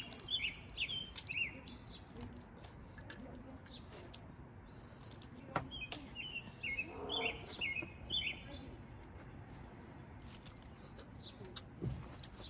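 A small bird chirping in two quick runs of short notes, one at the start and another about six seconds in, with scattered faint clicks in between.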